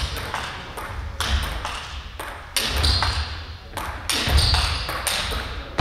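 Table tennis rally: the ball clicks sharply off the bats and the table in a quick, irregular series of hits, with dull low thumps among them.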